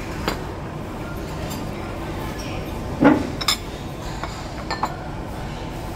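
Scattered clinks of dishes and utensils over a steady background din, with a louder, duller knock about halfway through.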